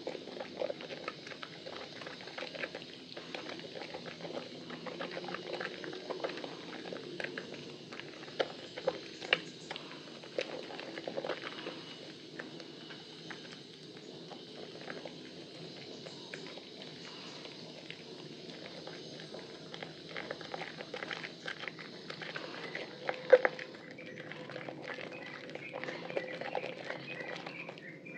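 Soaked bar of Lervia milk soap squeezed and kneaded by hand in foamy water: a steady run of wet squelches and small clicks from the soft soap and lather, with one louder squelch late on.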